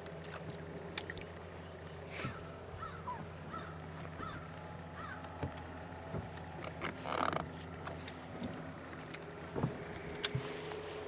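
Steady low hum of a bass boat's motor, with scattered clicks and knocks of handling. Short falling bird chirps come from about two to five seconds in, and a harsher bird call about seven seconds in.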